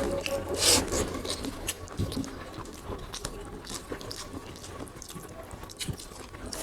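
People eating beef curry and rice: irregular chewing, smacking and small scrapes and clicks against plates, with one louder scrape shortly after the start.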